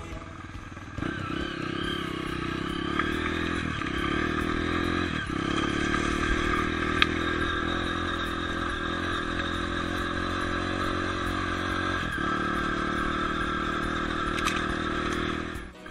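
Dirt bike engine running steadily under way, louder from about a second in, with a few brief dips in the engine note.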